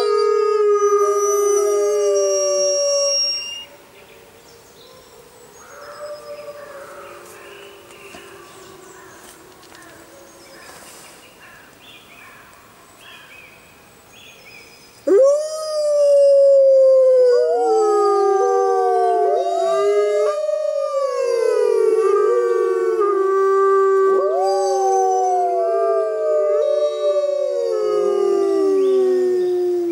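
Gray wolves howling. A long howl falls slightly in pitch and fades out a few seconds in. After a quieter stretch, a loud chorus of several overlapping howls starts abruptly about halfway through, each rising and falling in pitch, and breaks off at the very end.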